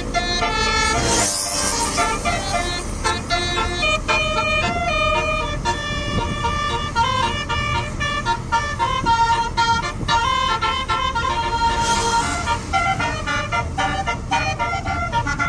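Telolet basuri musical air horn on a medium tour bus playing a fast tune of stepped tones. A brief hiss comes about a second in and again about twelve seconds in.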